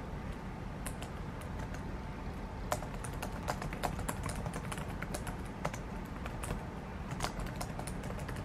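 Typing on a laptop keyboard: a run of quick, irregular key clicks over a low steady hum.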